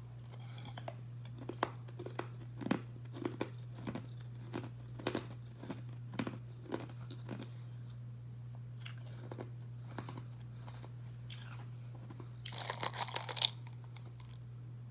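Close-up crunching and chewing of carbonated ice: a run of sharp crunches, then sparser ones, and a dense, loud burst of crunching near the end as a fresh piece is bitten.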